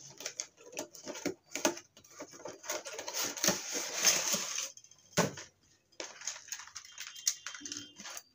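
Toy packaging being opened by hand: rustling and crinkling with many small clicks and knocks, and a denser stretch of rustling in the middle.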